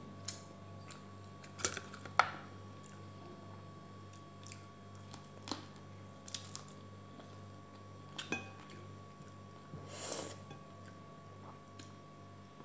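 Eating prawns and rice by hand: quiet chewing and mouth sounds with scattered short clicks and clinks against a ceramic plate and sauce bowl, the loudest about two seconds in, over a steady low hum.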